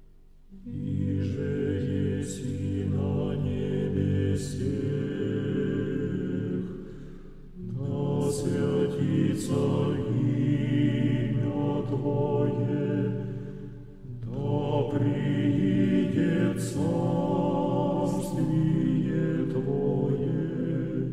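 Slow vocal music with chant-like singing held in three long phrases, each fading before the next begins.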